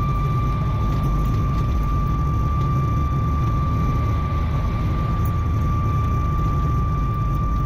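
2004 Ford Fiesta 1.4 TDCi diesel on the move: steady road and engine rumble with a constant high, thin whine-like rubbing tone over it. It is a friction noise that is not affected by braking or steering and stopped after a hard stab of the brakes, pointing to something rubbing in the brakes or wheel area, such as a shield or pad.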